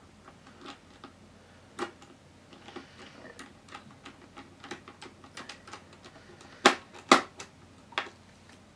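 Small irregular clicks and taps of a screwdriver and fingers working on the plastic and metal parts inside an open laptop, with two louder sharp clicks about two-thirds of the way in.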